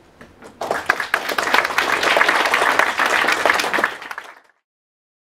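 Audience applauding: a few scattered claps, then a burst of dense applause from a roomful of people that fades out quickly near the end.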